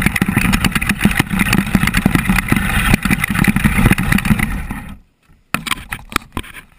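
Axial SCX10 electric RC crawler driving over gravel, heard from the camera mounted on its body: a steady motor and drivetrain whine mixed with dense rattling and crunching clicks. About five seconds in it cuts off suddenly, then only quieter scattered clicks and rattles.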